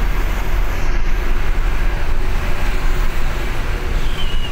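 Loud, steady rumble and road noise of a moving bus, strongest in the low end.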